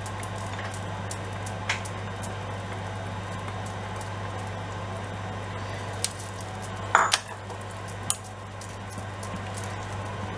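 A cooking spoon stirring diced ham and onion in hot butter and oil in an Aigostar Happy Chef multicooker's pot, with soft scrapes and a few knocks and clinks against the pot. The loudest knock comes about seven seconds in. A steady low hum runs underneath.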